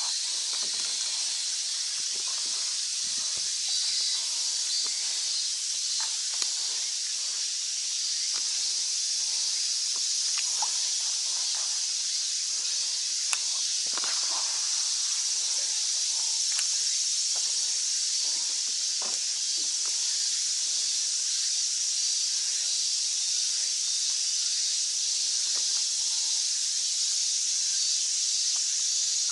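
Steady high-pitched drone of cicadas in the shoreline trees, with a few faint clicks and a fishing-rod cast swishing about halfway through.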